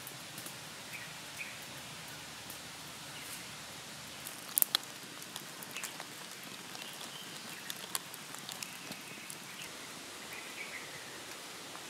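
Small open wood fire crackling, with scattered sharp pops over a steady hiss; the loudest is a quick double pop about four and a half seconds in.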